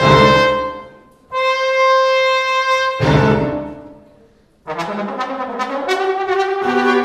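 Trombone and string quartet playing. A long, high held note sounds over loud accented chords at the start and again about three seconds in. After a brief pause, a busier, rhythmic passage with many quick attacks starts about four and a half seconds in.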